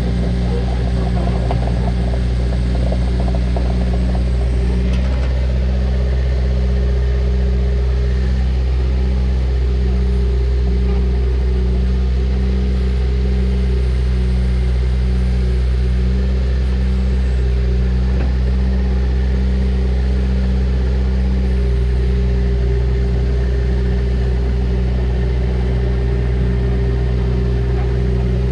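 Bobcat 331E compact excavator's diesel engine running steadily, with a slow, even pulsing in its hum for much of the time.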